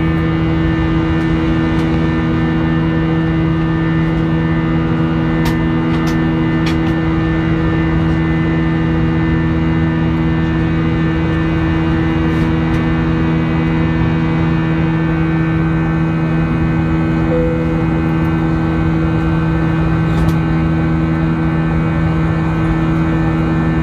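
Airliner cabin noise during the climb: the underwing jet engine's steady drone and rushing airflow, with a constant hum of several pitches. A few faint clicks come through from inside the cabin.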